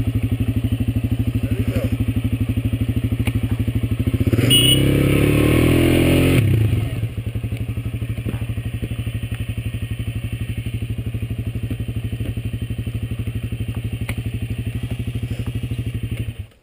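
Dirt bike engine idling with a steady rapid pulse. About four seconds in, a louder stretch of revving lasts about two seconds before it settles back to idle. Near the end the engine cuts off suddenly.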